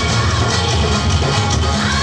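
Indian folk dance music with a heavy, steady beat, played loud for a group stage dance.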